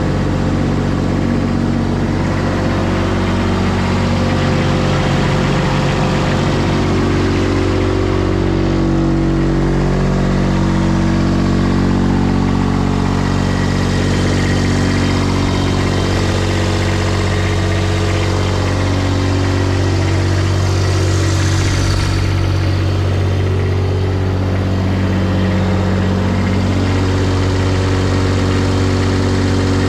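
Kubota D1105 three-cylinder diesel engine of a Baumalight TRL620D mini track loader idling steadily, freshly started and warming up, with small shifts in pitch a few times.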